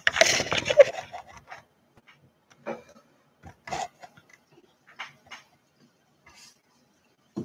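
Handling noise of the camera being moved and set down on a table: rubbing and scraping in the first second or so, then scattered light taps and knocks.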